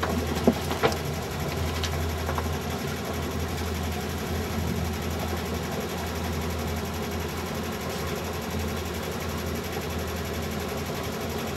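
Sailboat's inboard engine running steadily at idle, a low even hum, with a couple of sharp knocks in the first second.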